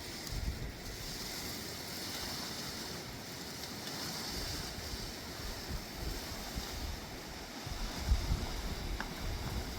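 Steady rush of a fast-flowing river, with gusts of wind buffeting the microphone that swell about eight seconds in.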